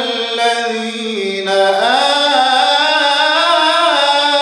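A man's voice reciting the Quran in drawn-out melodic tajwid, holding and bending long notes with melismatic glides, without instruments.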